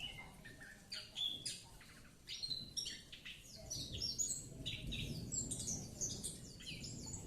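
Pet songbird singing in quick, varied high chirps and trills that run on without a break. A low background rumble joins about halfway through.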